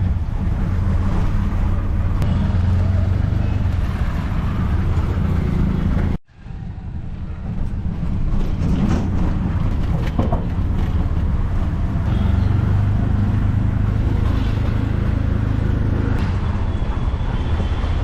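Vehicle running: steady engine hum with travel noise, broken by a sudden cut about six seconds in before the same kind of noise resumes.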